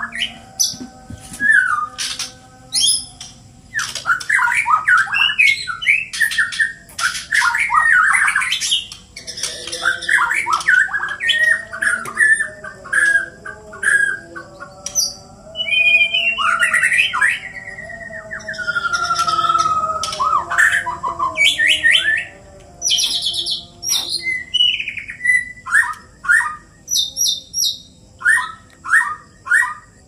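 Caged white-rumped shamas (murai batu) singing against each other in a song duel. Loud, varied phrases of sweeping whistles and rapid sharp notes follow one after another with short gaps. For about ten seconds in the middle a lower warbling line runs beneath the song.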